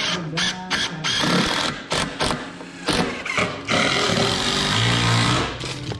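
Makita cordless driver running in several bursts, driving fasteners through a new floor joist into an old timber beam, with sharp knocks between the bursts. The longest burst comes about four seconds in.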